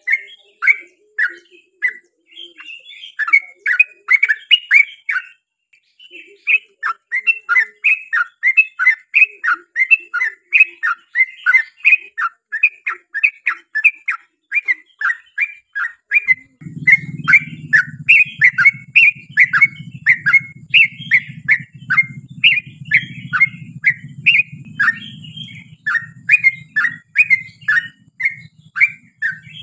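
Yellow-vented bulbul (trucukan) singing a long run of quick, bubbly chattering notes with only a brief pause about six seconds in. A low steady hum joins underneath a little over halfway through.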